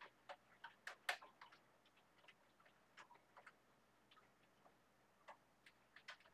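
Faint typing on a computer keyboard: irregular key clicks, with a few louder strokes about a second in.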